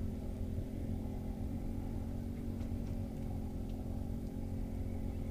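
Battery-powered aerator pump on a minnow bucket, running with a steady electric hum.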